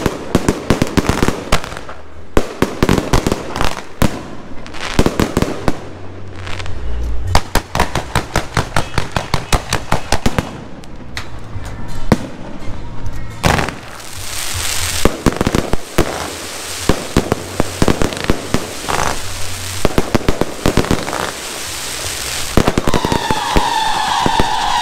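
A fireworks display: aerial shells launching and bursting in rapid succession, many sharp bangs with crackling. In the second half a steady hiss joins the bangs, and near the end a wavering whistle rises over them as fountain and comet fireworks fire.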